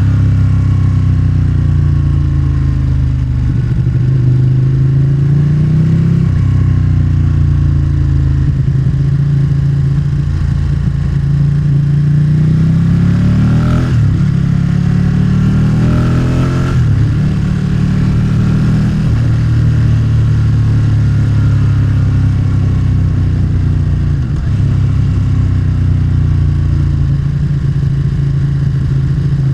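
Motorcycle engine running under way, its pitch climbing with the throttle and dropping back several times.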